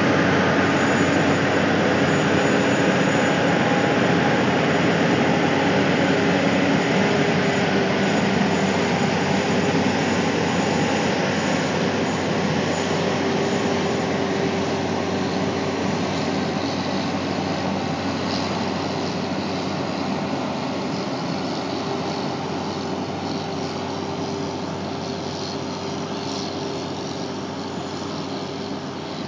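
Heavy-haul semi truck's diesel engine running under load with tyre noise as the multi-axle rig rolls past, a steady drone that slowly fades as it moves away.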